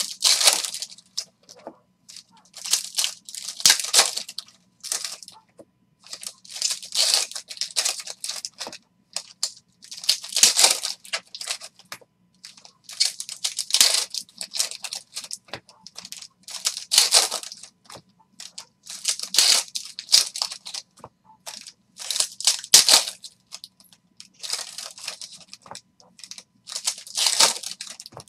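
Foil wrappers of Elite basketball card packs being torn open and crinkled by hand, a crackling rustle that comes in short bursts about every two to three seconds.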